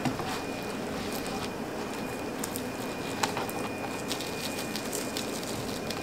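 Light, scattered ticks of salt and pepper shaken from a shaker onto a rack of pork ribs, over a steady background hiss.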